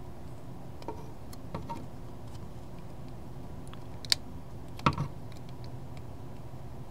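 Small plastic clicks and taps from a Transformers Brawl action figure as its arm and shoulder joints are moved by hand. A few faint clicks come early, a sharper click just past halfway and two more a second later, over a low steady hum.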